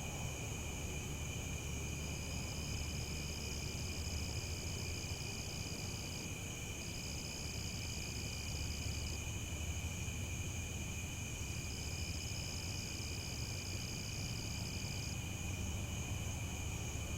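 A chorus of crickets trilling steadily at several pitches, one higher-pitched cricket starting and stopping a few times, over a low steady rumble.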